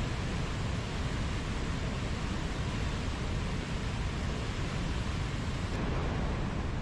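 Waterfall: water falling steadily in a constant, even rush, heaviest in the low end.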